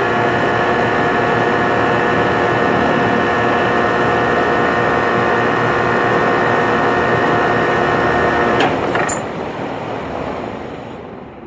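Rheem Classic Series air-conditioner condenser running, heard from inside the compressor compartment: the Copeland scroll compressor gives a steady hum with several pitched tones over the rush of the condenser fan. About eight and a half seconds in, a couple of clicks come as the unit shuts off. The compressor hum stops at once and the fan noise dies away over a few seconds, falling in pitch as it coasts down.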